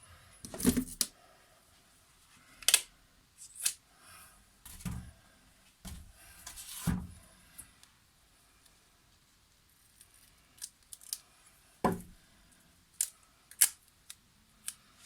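Adhesive tape being pulled from the roll and handled, a few short rasping pulls among sharp clicks and taps of handling parts.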